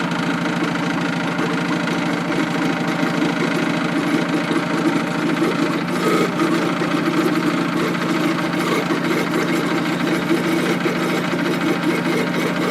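12-volt electric gear pump running steadily, drawing old hydraulic fluid out of a forklift's hydraulic reservoir, with a rattle that grows rougher from about six seconds in as the reservoir nears empty.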